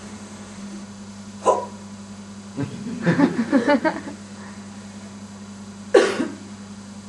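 A woman's voice making short, abrupt wordless yelps: one about a second and a half in, a quick choppy run of them a second later, and another about six seconds in, over a steady low electrical hum.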